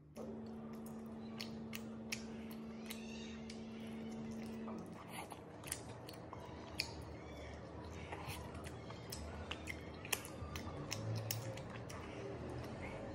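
Close-up eating sounds: fried chicken being pulled apart and chewed, heard as many sharp clicks. A steady hum runs underneath for the first five seconds or so.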